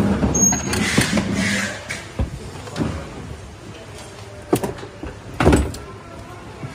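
Hard plastic body panels of a JC304 ride-on car being handled, with scrapes and knocks and two louder sharp knocks about four and a half and five and a half seconds in.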